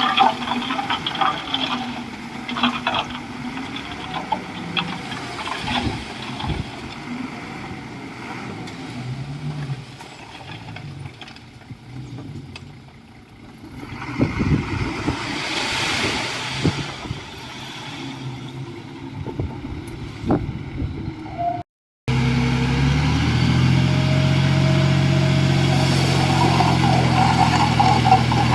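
Heavy construction machinery at work: engine noise with scattered knocks and scrapes. After a brief dropout about two-thirds of the way through, an engine runs loud and steady.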